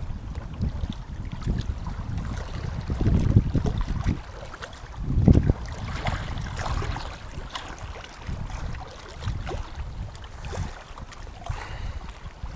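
Wind buffeting the microphone: an uneven low rumble that swells and fades in gusts, strongest about five seconds in.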